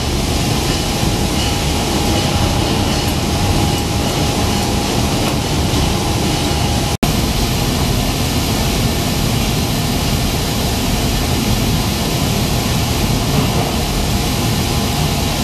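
Steady industrial machinery noise of an electroplating line: a constant rumble and hiss with a thin steady whine that stops at a brief dropout about seven seconds in.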